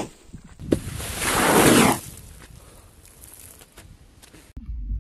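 A click, then a loud rushing whoosh about a second long, falling in pitch, from a big plastic bottle rocket pressurised with liquid nitrogen blasting off in a spray of liquid.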